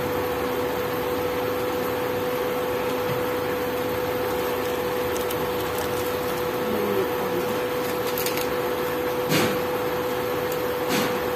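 Induction cooktop running under a pan, a steady hum with a constant tone. Two short knocks come near the end.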